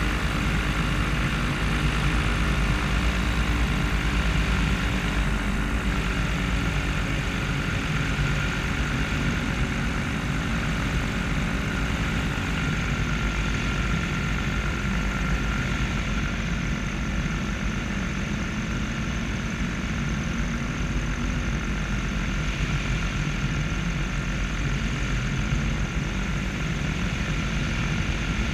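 Paramotor engine and propeller running steadily in flight, with wind rushing over the microphone.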